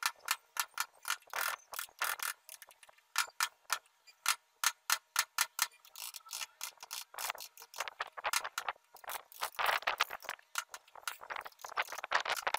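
A hand chisel cutting into a pine block: an irregular run of sharp clicks and small cracks as wood chips split away.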